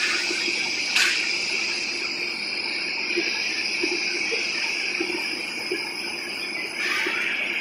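Turntable shot blasting machine running: a steady high-pitched hiss, with a sharp knock about a second in and a brief surge of noise near the end.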